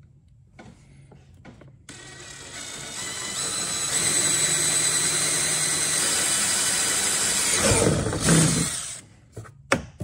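Cordless drill boring a hole through a plastic kayak hull, its motor whine building over the first seconds and then holding steady. A louder, lower burst comes about eight seconds in, then the drill stops, followed by a short click.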